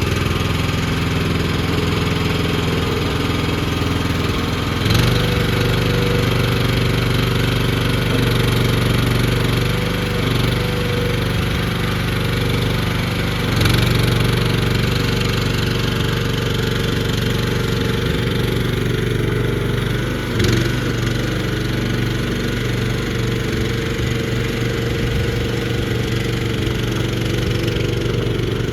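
Gasoline engine of an unused EG36C mini skid steer loader, freshly started and running steadily, its note shifting briefly about 5, 14 and 20 seconds in.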